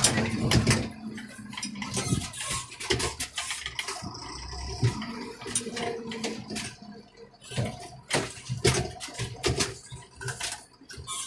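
Irregular knocks, clunks and rattles inside a Deutz tractor's cab as it moves, over a low diesel engine hum.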